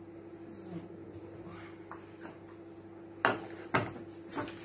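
Plastic measuring jug set down on a kitchen counter: two sharp knocks about half a second apart, a little over three seconds in, then a lighter knock near the end. A steady low hum runs underneath.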